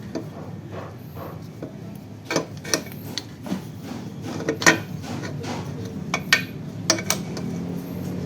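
Irregular metal clinks and light knocks of air compressor parts being handled and fitted together during reassembly, the loudest near the middle.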